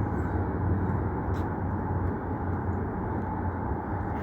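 Steady low rumble of outdoor city ambience, mostly distant traffic, with a faint tick about a second and a half in.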